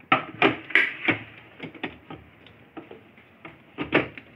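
Stainless-steel mixer-grinder jar and its lid knocking and clicking against each other and the plastic base as the jar is handled and seated onto the grinder, with several sharp knocks in the first second, lighter ticks after, and two more knocks near the end.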